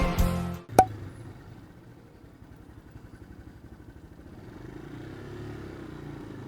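A sharp click just under a second in, then a motorcycle engine idling with a low, rapid pulse that grows a little louder near the end.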